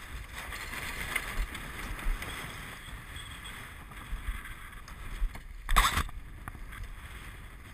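Water rushing past the hull of a Farr 30 racing yacht under sail in choppy water, with wind on the microphone. Just under six seconds in, a single loud bump against the camera.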